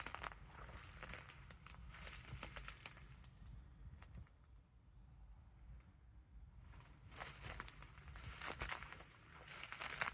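Footsteps crunching through dry brush and leaves, irregular crackling with a quieter pause of about three seconds in the middle, then louder crunching again.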